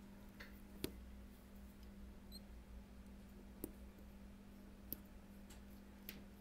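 A few faint, sharp clicks, four in about six seconds, of a tri-wing precision screwdriver's metal tip working the small screws on the steel back plate of an iPhone 7 display assembly, over a steady low hum.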